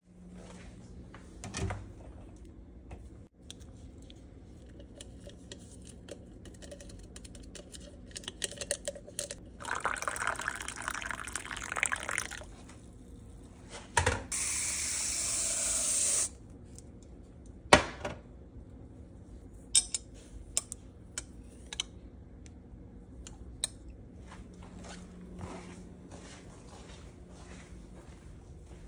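Kitchen drink-making sounds: liquid pouring for a couple of seconds, then a steady two-second spray hiss from a can of aerosol whipped cream. Scattered clicks and knocks of cups and utensils on a stone counter come through the whole stretch.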